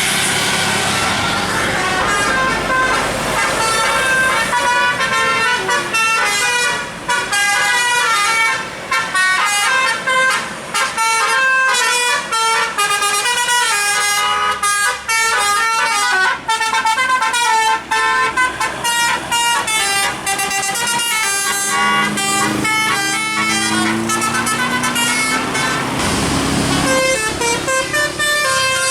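A bus's musical 'telolet' air horn, driven by a DAV horn module, plays a long fast melody, its notes changing several times a second. A lower rising tone joins between about 22 and 27 seconds in.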